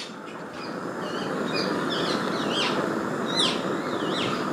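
Small birds chirping in a run of quick up-and-down chirps through the middle, over a steady rushing background noise that builds up in the first second.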